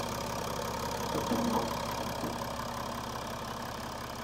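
BMW M57N2 3.0-litre straight-six turbodiesel idling steadily, heard with the bonnet open.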